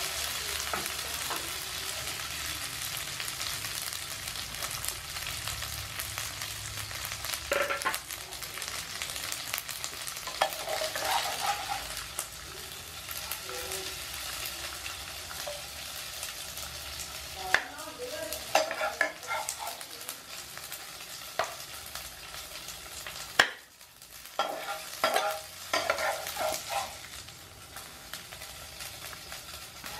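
Yakisoba noodles and sliced sausage sizzling in a nonstick frying pan as a metal spatula stirs and scrapes them. In the second half there are clusters of sharper scrapes and knocks of the spatula on the pan.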